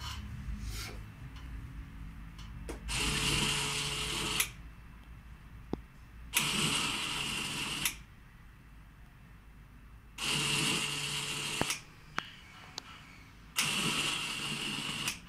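Small electric motor in a home-automation model, switched from a phone app, running in four separate bursts of about a second and a half each, with a few light clicks in between.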